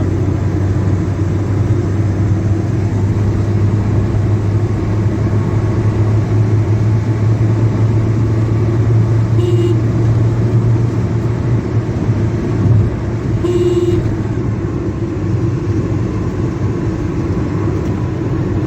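Toyota Corolla XLi being driven, heard from inside the cabin: a steady low engine and road rumble. Two brief tones cut in, about four seconds apart, near the middle.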